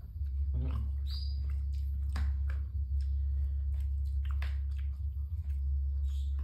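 Eating sounds: metal spoons clicking and scraping on plastic plates, with wet chewing and smacking, some of them squeaky. A steady low hum runs under it all.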